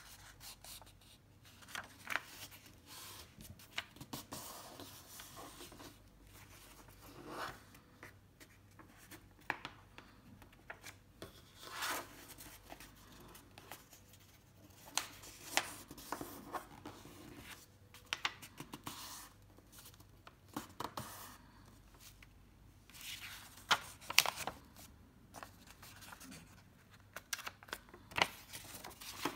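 Sheet of paper being folded by hand: intermittent rustling and sliding, with short sharp crackles as the creases are pressed down.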